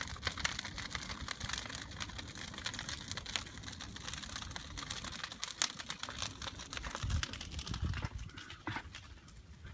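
Large wood bonfire burning, with frequent irregular sharp crackles and pops over a low steady rumble.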